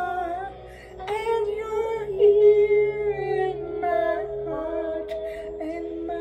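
A woman singing long, wordless held notes that slide between pitches, over a soft instrumental backing track.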